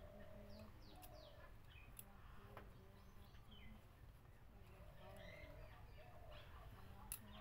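Faint scattered bird chirps and short calls over a low steady background rumble, with one sharp click near the end.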